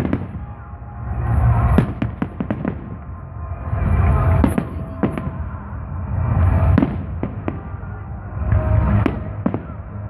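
Aerial fireworks shells bursting in a show: many sharp bangs and cracks, several in quick clusters, over a low rolling rumble that swells and fades.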